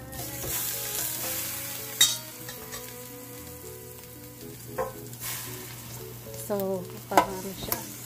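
Raw chicken leg quarters laid into a preheated air fryer basket with metal tongs: the meat hisses and sizzles as it meets the hot basket, swelling twice. Sharp clicks come as the tongs knock against the basket, one about two seconds in and one near the end.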